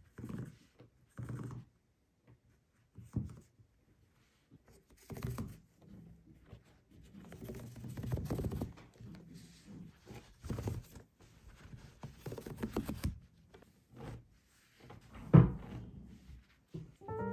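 Crocheted T-shirt yarn being pulled out and handled on a wooden table, making irregular soft rustles, tugs and light knocks. One sharp thump comes near the end.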